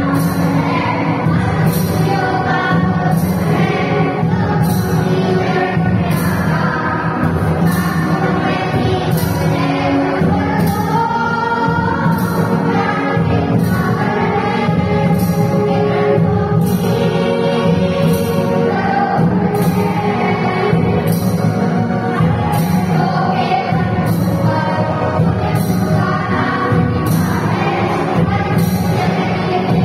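A group of children singing a song in unison, accompanied by hand drums and a jingle ring that keep a steady beat of roughly one stroke a second.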